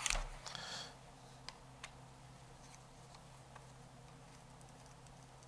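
Faint clatter of the airgun and tools being handled in the first second, then a few quiet ticks as a screwdriver works at the rear sight screw.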